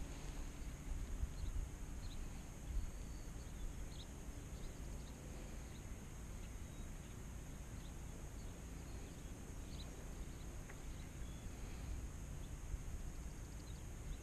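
Quiet outdoor ambience on the water: low wind rumble on the microphone, a few short, faint bird chirps scattered through, and a steady high-pitched hum underneath.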